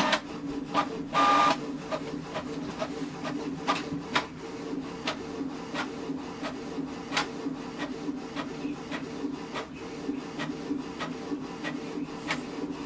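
Canon PIXMA TR4520 inkjet printer running a two-sided (duplex) copy: a steady motor hum with irregular clicks and ticks from the mechanism, and a brief louder whir about a second in.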